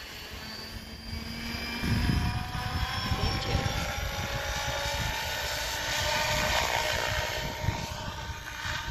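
SAB Goblin electric R/C helicopter flying, its motor and rotor whine slowly rising in pitch. It gets louder about two seconds in, with a low rushing sound added under the whine.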